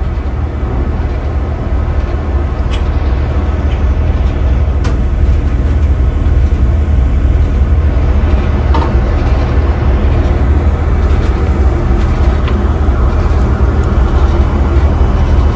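A ferry's engine rumbling steadily on board, getting a little louder over the first few seconds, with a few faint clicks.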